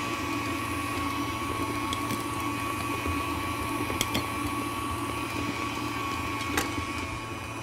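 A 325-watt KitchenAid tilt-head stand mixer running steadily, beating butter into cooled Italian meringue to make buttercream, with a constant motor whine and low hum. A couple of light clicks sound about four and six and a half seconds in.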